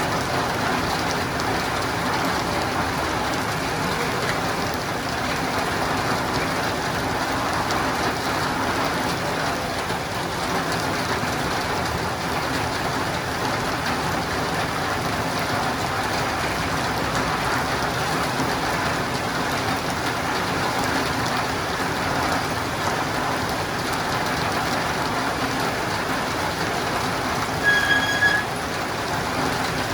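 Steady rain falling on a roof and running down windows, an even hiss. Near the end a brief high-pitched tone sounds once, louder than the rain.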